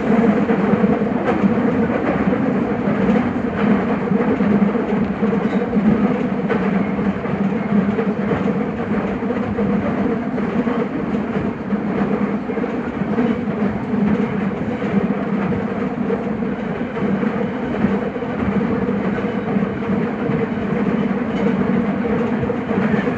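Nagoya Municipal Subway 5050-series train running at speed, heard from on board: a steady rolling roar of wheels on rail with a continuous low hum from the running gear.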